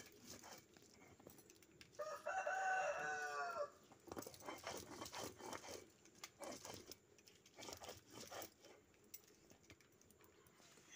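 A rooster crows once, a single call of nearly two seconds starting about two seconds in, the loudest sound here. Around it come short scraping strokes of a hand-held grinding stone rubbing spices on a stone slab (sil-batta).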